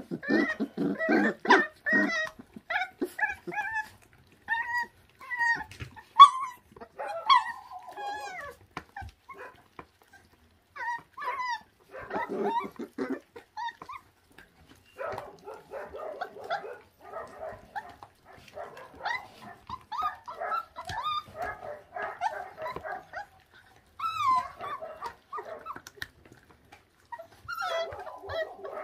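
Young puppies, about 26 days old, whining and yipping in many short high-pitched calls while tearing at raw meat, with brief pauses between bouts. The whining is frustration: their teeth can't yet tear the meat apart the way they want.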